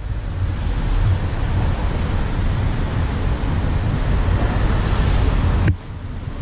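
Wind buffeting the microphone of a camera moving along with a rider on an electric unicycle: a steady rumbling rush, with street traffic underneath. The noise drops suddenly near the end, then picks up again.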